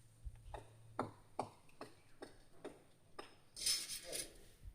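Chopping at a coconut tree: a string of short, sharp strokes, about two to three a second, followed near the end by a brief burst of rustling noise.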